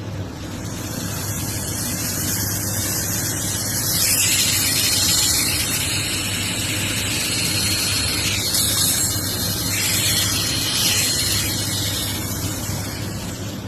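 Electric nail drill motor running with a steady hum and a high hiss, a thin whistle sounding through the middle and the level swelling a couple of times; it cuts off abruptly at the end.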